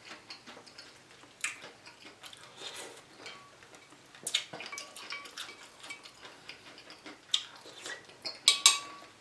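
Metal spoon clinking and scraping against a glass bowl of soup as it stirs and scoops, several clinks ringing briefly, with a quick cluster of the loudest clinks near the end.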